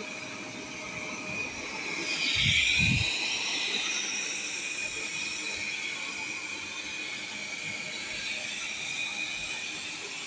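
Viomi V3 robot vacuum running, its suction fan giving a steady high whine. It swells louder about two seconds in, with two low thuds close together.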